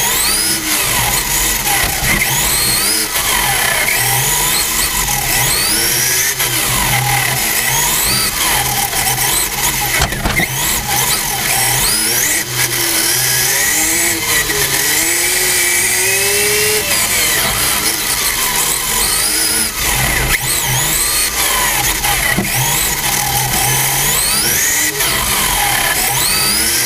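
RC touring cars racing on a track, their motors whining up and down in pitch over and over as they accelerate and slow through the corners, with several cars heard at once over a steady rushing noise from the car carrying the camera.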